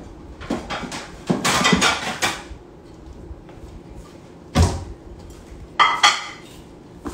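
Kitchen handling clatter. A run of rattling and clattering comes about a second and a half in, a dull thump a little after four and a half seconds, and a brighter clatter with a short ring around six seconds, like dishes and kitchenware being moved about.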